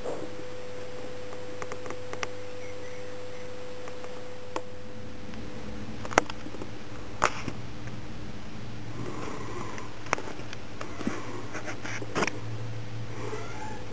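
Several short, sharp clicks a second or more apart, pushbuttons on a microcontroller evaluation board being pressed, over a steady low electrical hum from the bench setup.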